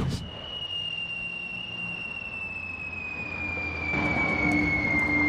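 A single long whistle that glides slowly and steadily down in pitch, like a falling-bomb whistle sound effect. A low hum underneath grows louder in the second half.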